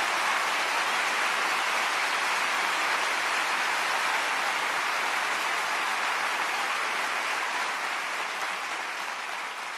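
Concert audience applauding steadily after a song ends, the applause dying down near the end.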